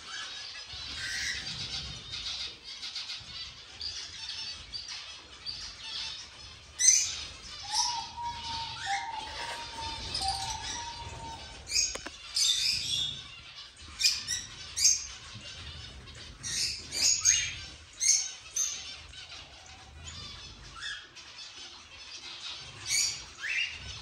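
A mixed aviary of cockatiels, finches and other small cage birds chirping and squawking, with many short, sharp calls that come thickest around the middle.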